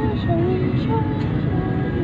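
Steady road and engine rumble heard from inside a moving vehicle, with a song playing over it: a sung melody of held, gliding notes above a light, regular beat.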